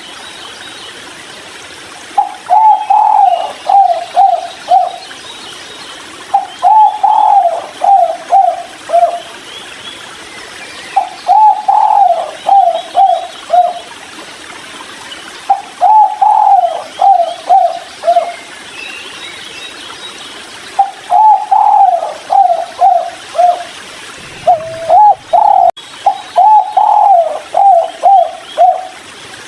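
Spotted dove cooing its "kuk 3" song: repeated phrases of several short notes, each phrase about two to three seconds long and coming roughly every four to five seconds. Faint chirps of small birds sit behind it.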